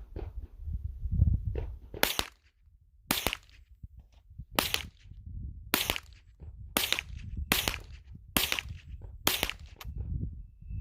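Canik TP9SFX 9mm pistol fired about eight times at a steady pace, roughly one shot a second.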